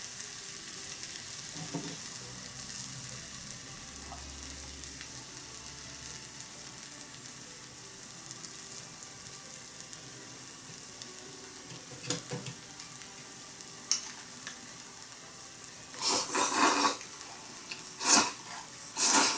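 Horumon hotpot with champon noodles sizzling steadily in a mini iron pot over an alcohol stove. The broth has cooked down too far, so the food is catching and scorching on the bottom of the pot. Several short, louder noises come near the end.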